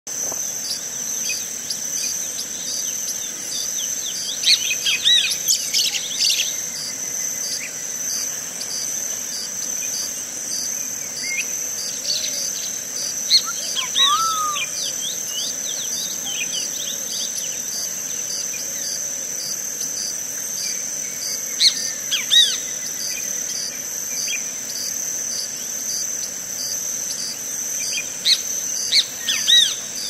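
Birds calling in short bursts of chirps, about four times, over a steady, high-pitched insect drone.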